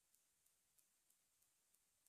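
Near silence, with faint ticks about three times a second.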